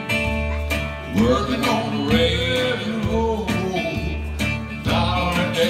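Live acoustic blues: an acoustic guitar plays a steady rhythm with low bass notes, and a voice sings a bending melody line over it from about a second in, and again near the end.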